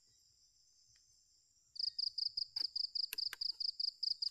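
A night insect chirping in a fast, evenly pulsed high series, about five pulses a second, that starts again a little under two seconds in, over a steady high insect whine. Two sharp clicks come about three seconds in.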